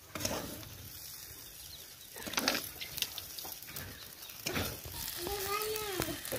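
Metal spatula scraping and clinking against a metal karahi as fried masala okra is scooped out onto a plate, over faint sizzling from the pan.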